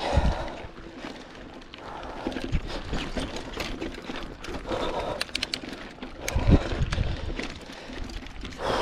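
Mountain bike rattling and knocking over a rocky dirt trail, with scattered sharp clicks and low thumps, and the rider breathing hard from the climb.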